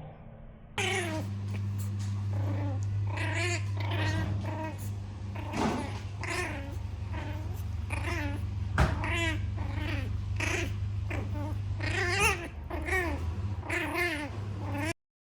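Chihuahua puppy crying: a long run of short, high-pitched whimpers, each rising and then falling in pitch, one or two a second, over a steady low hum. A sharp click comes about halfway through.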